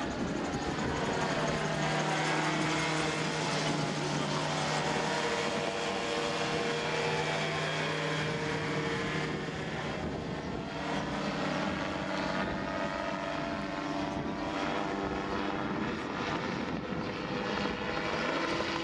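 Gyroplane flying overhead: its engine and propeller make a steady drone with a buzzing tone, the pitch sliding gently up and down as it banks and passes.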